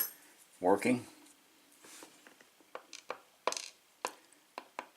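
Scattered light clicks and taps of small metal parts: the pins from a gutted padlock being handled and laid out on a work surface.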